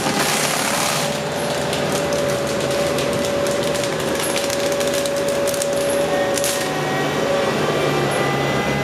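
Forestry mulcher running, a steady engine drone and a held whine from the spinning mulching head, with many sharp cracks and ticks over it as it chews through brush and wood. A denser burst of grinding comes in the first second.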